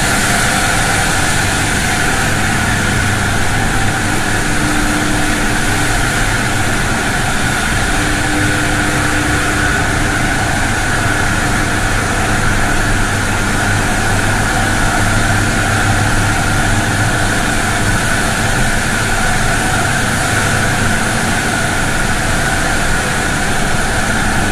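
Steady, loud machinery drone in the machine hall of a pumped-storage hydroelectric plant, with a low hum and a steady higher tone.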